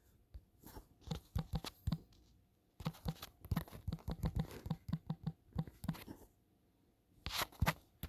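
Fingertip taps on a smartphone touchscreen while typing on the on-screen keyboard: quick, irregular light taps, busiest in the middle, with a short cluster near the end.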